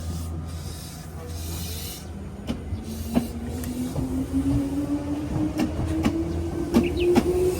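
Iyo Railway electric train pulling away: the traction motor whine rises steadily in pitch from about two and a half seconds in, over sharp, irregular clicks of the wheels on the rails.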